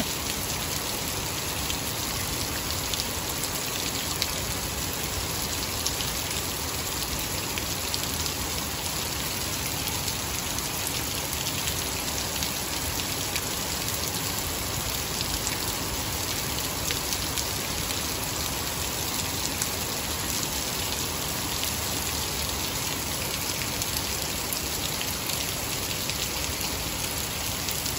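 Heavy rain falling steadily on a waterlogged lawn and its puddles, an even hiss of countless drops.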